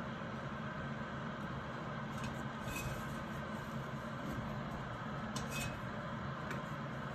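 Steady background hum, with a few faint small clicks of an igniter wire and connector being handled against the metal burner tray, a little after two seconds in and again twice near the end.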